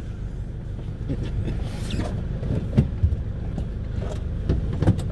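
Van engine idling with a steady low rumble in the cab, while a passenger climbs into the seat with scattered knocks, clicks and rustles of clothing and seat.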